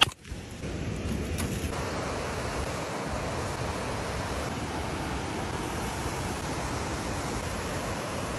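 Steady rushing of a mountain stream. A sharp click comes right at the start.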